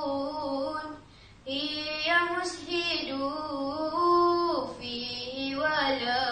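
A girl singing nazam Al-Quran, a chanted religious verse, solo in long held notes that bend and turn, with a short pause for breath about a second in.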